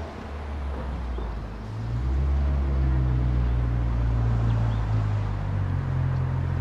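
A car's engine running with a steady low hum, a little quieter for the first couple of seconds, then louder again.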